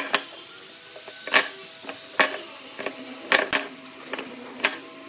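Irregular sharp knocks and clicks of work on wood, about ten spread unevenly over a few seconds, over a steady machine hum.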